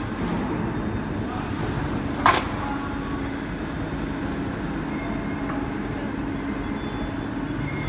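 Injection moulding machine running with a steady hum while the open basket mould ejects a moulded plastic basket, with one sharp metallic knock about two seconds in.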